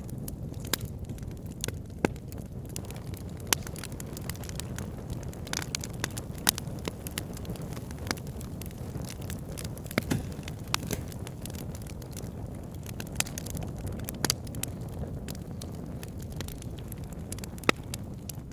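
Wood fire burning in a fireplace: a steady low roar of the flames with irregular sharp crackles and pops, a few louder snaps scattered through.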